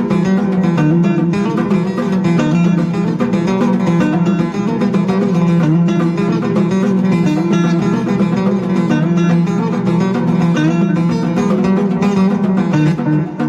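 Background music led by a plucked string instrument, with rapid picked notes.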